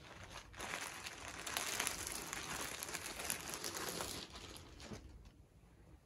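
Thin clear plastic polybag crinkling and rustling as a folded jersey is pulled out of it. The crackle starts about half a second in and dies away after about four seconds.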